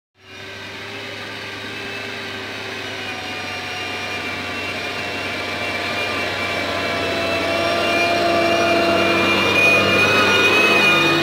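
Steyr tractor's diesel engine working steadily under load as it pulls a reversible plough through the soil. The sound grows gradually louder as the tractor comes up to and passes close by.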